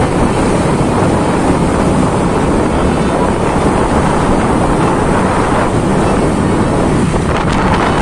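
Wind rushing over the microphone of a camera on a moving motorbike, mixed with the bike's road and engine noise: a loud, steady rush.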